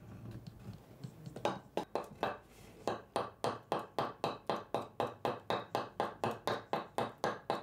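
Rapid, even tapping of sharp knocks, about four to five a second, after a low rumble in the first second or so.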